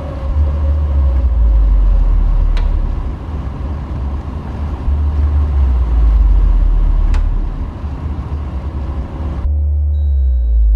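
Low rumble of a car interior on the road, with a few faint clicks. About nine and a half seconds in, it cuts off sharply into a low, ominous musical drone with thin held tones.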